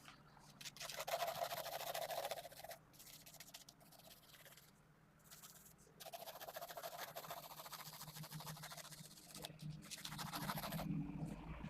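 Mechanical pencil (0.5 mm 2B lead) scratching on paper as strokes are sketched, in two spells of quick strokes.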